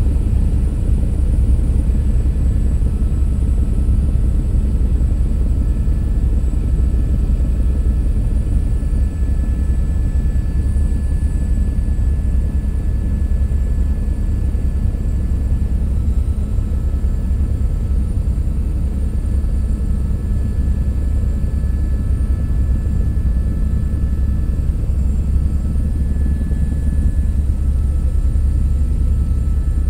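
Helicopter in flight: a steady low rotor and engine drone with a faint, steady high whine above it.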